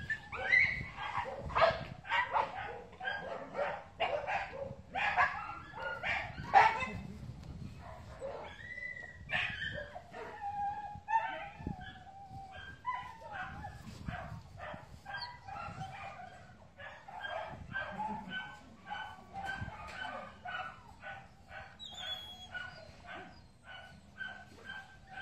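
Dogs barking and yelping over and over, mixed with whines, loudest in the first seven seconds and then quicker, quieter yaps.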